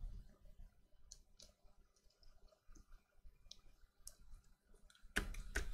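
Faint scattered clicks and taps from trading cards being handled at a desk, with a quick cluster of sharper clicks near the end.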